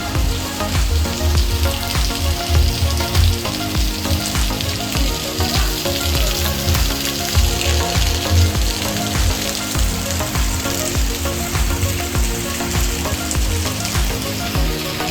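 Steady hiss of rushing water from a waterfall and its river, under background music with a steady bass beat and held chords that change every second or two.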